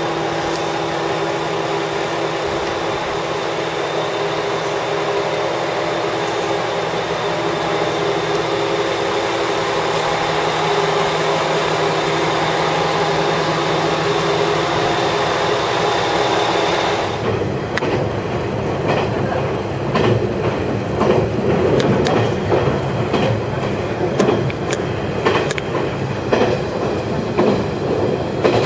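Small diesel train running, with a steady engine drone for about the first 17 s. Then the engine note drops away and the rattle and clatter of the wheels over the track take over, with frequent short knocks.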